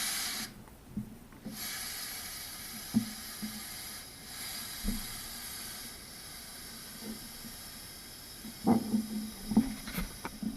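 Steady breathy hiss of air being blown into a slime bubble, with a few soft clicks and pops, more of them near the end.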